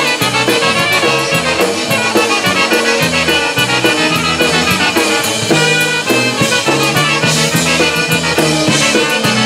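Live polka band playing: two trumpets carrying the melody over a drum kit keeping a steady beat and alternating low bass notes.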